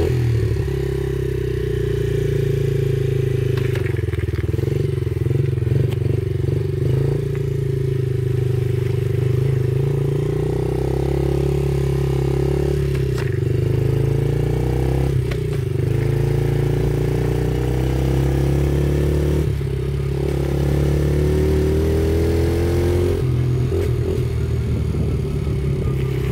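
Yamaha TT-R50E's small single-cylinder four-stroke engine running as the bike is ridden. Its pitch climbs with speed and drops back at each gear change, several times over.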